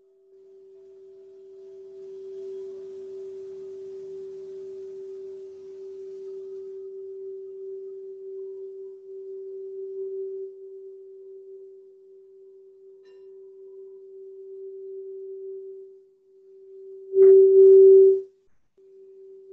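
A single steady ringing tone from a sound-healing instrument such as a singing bowl, swelling and easing a little as it sounds. About seventeen seconds in, a brief, much louder rush of sound hits, lasting about a second, before the tone carries on more quietly.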